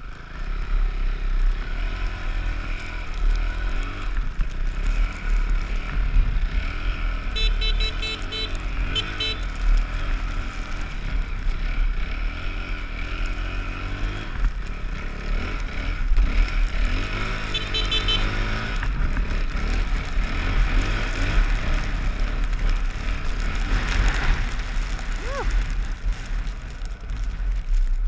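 Dirt bike engine running while riding through deep snow, revving up and down, over a steady low rumble.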